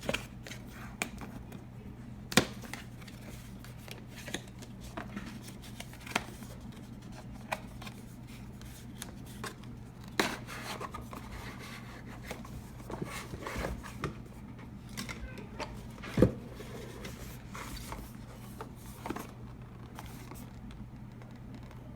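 Plastic retail packaging of a GoPro camera being handled and opened by hand: scattered clicks, taps and rustles, with a sharper knock about two seconds in and the loudest one about sixteen seconds in, over a steady low hum.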